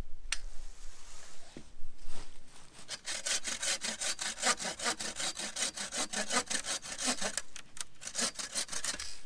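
Bow saw cutting through a thin birch pole with quick, steady back-and-forth strokes, starting about three seconds in.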